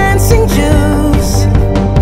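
Background music: a song with drums and a wavering melody line.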